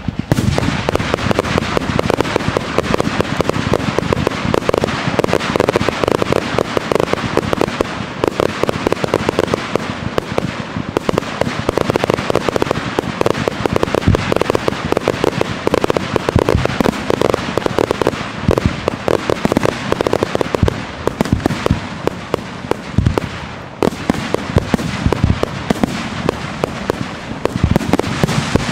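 Professional fireworks display: a dense, continuous crackling and popping of many shell bursts, with deeper booms now and then.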